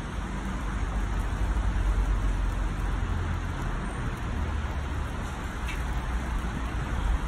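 Steady rushing outdoor noise with a low, unsteady rumble underneath.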